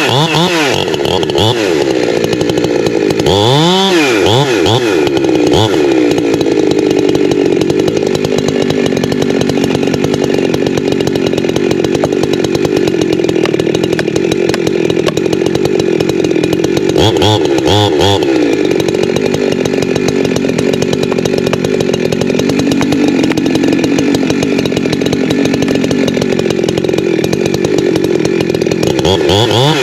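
Holzfforma G372XP Pro two-stroke chainsaw cutting into a tree under load, its engine note sagging and recovering as the chain bites. The throttle drops and revs back up at the start, about four seconds in, around seventeen seconds in and again at the end.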